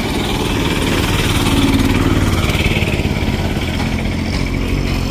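Close street traffic: vehicle engines, motorcycles among them, running by, growing a little louder about two seconds in.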